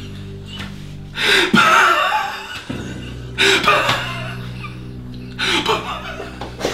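Background music of steady held chords, broken three times, about two seconds apart, by a man's loud outbursts of laughter.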